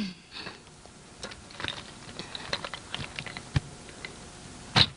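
Scattered light clicks and knocks from movement at a pile of split firewood, with a sharper knock about three and a half seconds in and a louder one near the end.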